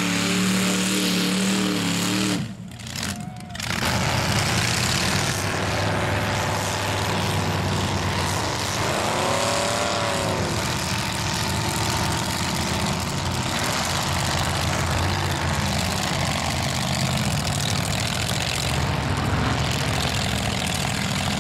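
Mega mud truck's engine running hard as the truck drives through the dirt and mud, with one rev rising and falling in pitch about ten seconds in. The sound drops away briefly about two and a half seconds in.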